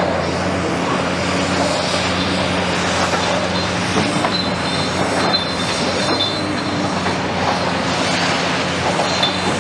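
Heavy tracked excavators working on concrete demolition: a steady diesel engine drone with hydraulics, and rattling and knocking of broken concrete. Brief high metallic squeals come about four to five seconds in and again near the end.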